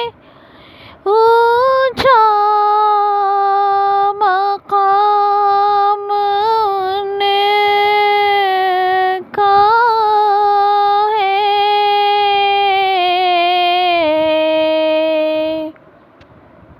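A single high solo voice singing a naat unaccompanied, in long held notes that glide between pitches, phrased with short breaths; it stops about a second before the end.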